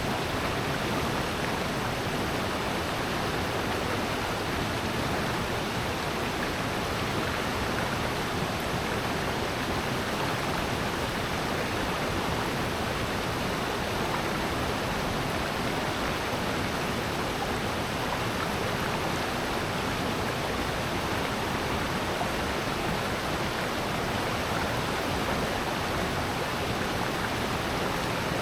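Water of a valley stream and waterfall rushing steadily: an even, unbroken rush with no change in level.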